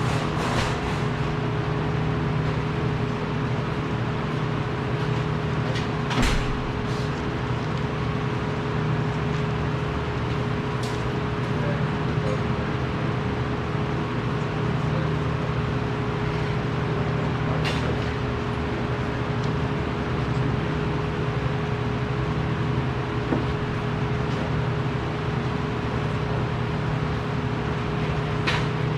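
Steady machinery hum with a constant tone, broken by a few sharp clicks or knocks.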